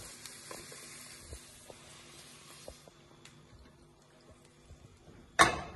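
Sliced mushrooms sizzling faintly in a frying pan under a wooden spoon, the sizzle dying away about halfway through as they are taken off. Near the end comes one sharp knock.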